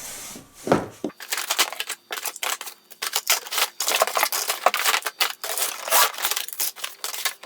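A toy box's packaging being opened and handled: a dense, irregular run of crinkling, crackling rustles and small clicks.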